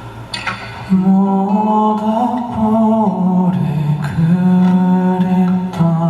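Male singer's voice singing a slow melody live, holding long notes from about a second in, with a few light strums or clicks underneath.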